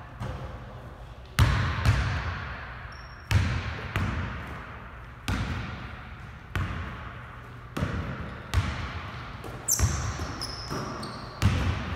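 A basketball being dribbled on a hardwood gym floor, about ten bounces at uneven intervals of roughly a second, each echoing in the large hall. Short high sneaker squeaks on the hardwood come near the end.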